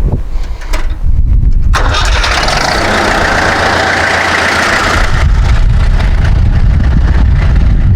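A freshly rebuilt 444 tractor diesel engine, its fuel system just bled, being cranked on a jump-start boost, churning over without yet running. A loud hiss sits on top of it from about two seconds in to about five seconds in.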